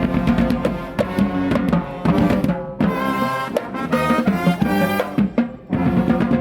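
Brass street band playing: horns in short phrases over drums and percussion.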